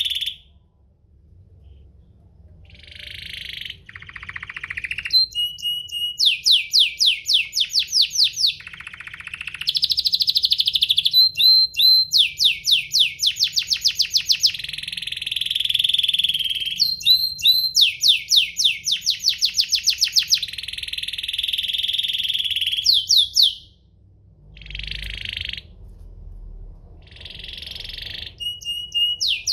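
Domestic canary singing a long, loud song of rapid trills and rolls of quickly repeated notes mixed with sustained buzzy notes, with brief lulls about a second in and again near the end.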